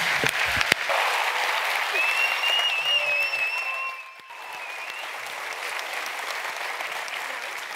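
Audience applauding, loud for the first few seconds and then softer after about four seconds. A wavering high whistle runs over the clapping for a few seconds near the middle.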